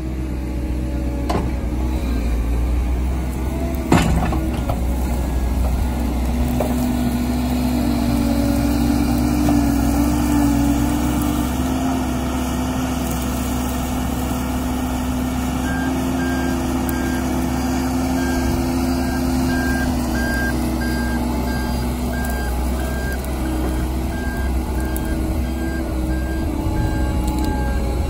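New Holland L175 skid steer's diesel engine running under load as it clears brush, the engine note shifting up and down, with one sharp knock about four seconds in. From about halfway, its reversing alarm beeps at a steady pace.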